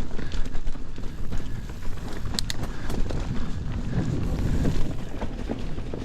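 Mountain bike rolling along a dirt singletrack trail: continuous tyre and drivetrain rumble with the bike rattling over bumps. A few sharp clicks and knocks come through, a cluster of them about two and a half seconds in.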